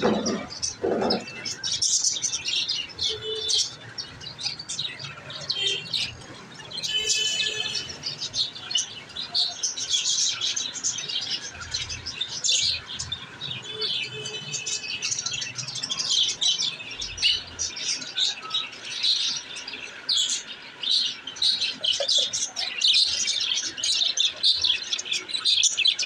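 Several caged budgerigars chirping and chattering in a steady stream of short, high chirps, with bursts of quick warbling.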